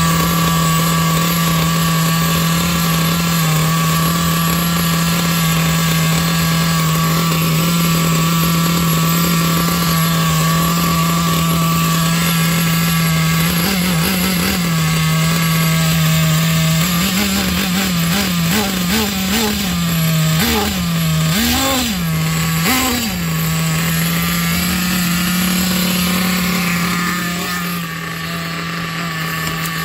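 Hong Nor nitro glow engine in an RC car idling steadily. In the middle it gets a run of short throttle blips, each rev rising and falling straight back, the last two the biggest, before it settles again to an even idle.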